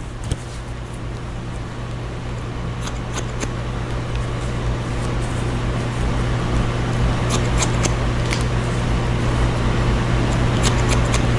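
Hair-cutting shears snipping short hair, a few quick sharp clicks now and then, over a steady low hum and hiss that slowly grows louder.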